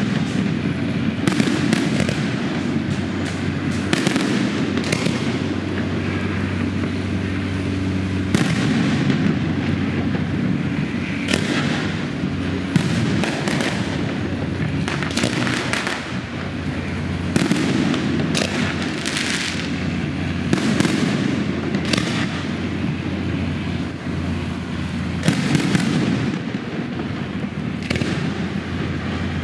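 Fireworks going off in rapid succession: many sharp bangs and crackling bursts, one after another, over a steady low hum.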